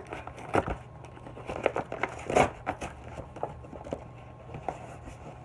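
A shipping parcel being opened by hand: packing tape picked at and torn off, with crinkling packaging and a run of short scratchy rips, the loudest about two and a half seconds in.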